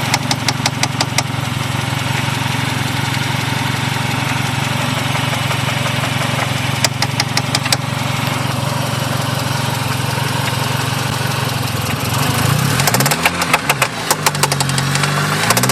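1G Talon AWD's turbocharged 2.0-litre four-cylinder idling with a knock, with clusters of sharp knocks about a second in and around seven seconds in; near the end it is revved up and down twice. The owner is unsure whether the knocking is a rod knock, a dead lifter, a binding valve spring or the transmission.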